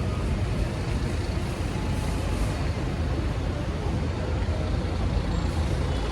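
Steady vehicle and road noise, a low rumble with an even hiss above it and no distinct events.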